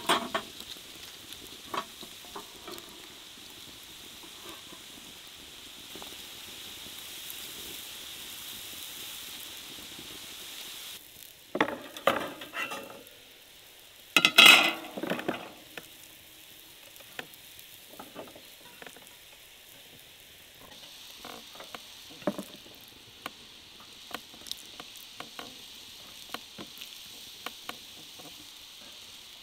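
A wide steel pan heating over a charcoal fire with a steady sizzling hiss, tongs clinking against the grill at the start. After about eleven seconds the hiss gives way to two loud clattering bursts, then light scattered ticks and taps as marinated sturgeon pieces are laid in a wire grill basket.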